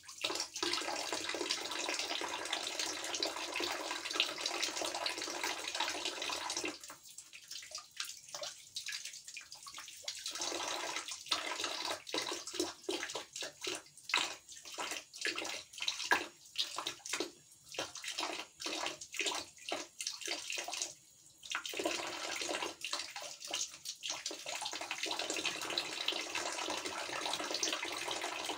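A thin stream of water from a shower tap running into a bucket, a steady splashing at first; from about seven seconds in to about twenty-one seconds it breaks into rapid, irregular splashes as a cat paws at the stream, then it runs steadily again.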